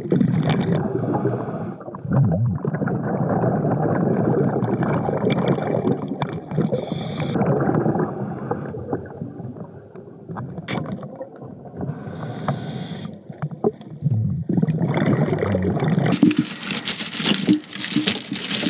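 Muffled underwater noise while diving, gurgling bubbles and breathing through a surface-supplied air line. About sixteen seconds in, a sudden loud, bright hissing clatter takes over.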